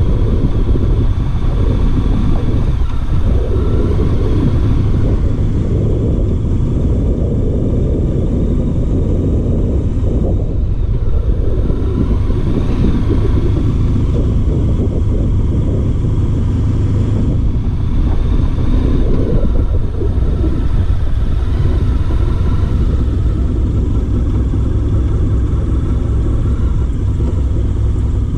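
Honda VFR1200's V4 engine running steadily at low road speed, a continuous low rumble.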